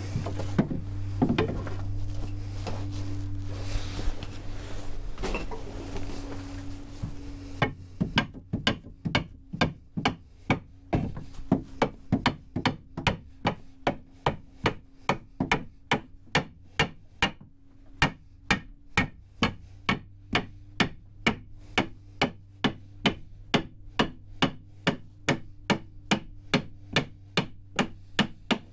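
Hammer knocking an oak sister timber into place against a boat's bilge stringer. After a few seconds of shuffling and odd knocks, steady hammer blows come about two a second for the rest of the time, over a low steady hum.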